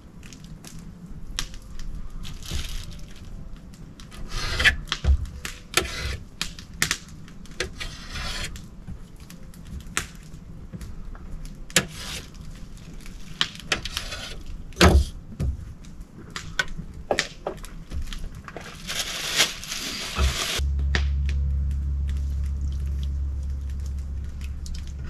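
A knife cutting and scraping grouse breast meat off the carcasses on a metal table: rubbing and scraping with many sharp ticks and taps. Near the end a steady low hum starts suddenly and takes over.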